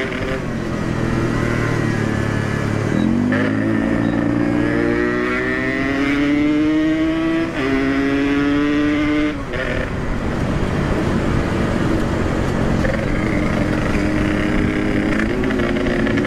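Yamaha RX King's two-stroke single-cylinder engine accelerating hard through the gears. Its pitch climbs steadily, falls at a shift about seven and a half seconds in, climbs again and falls at another shift about two seconds later. It then runs at speed under heavy wind rush and starts climbing again near the end.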